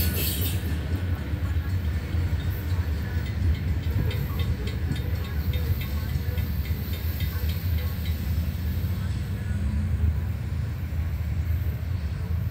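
Railroad grade-crossing warning bell ringing in regular strokes while the gates lift after the train has cleared, stopping about nine seconds in, over a steady low rumble.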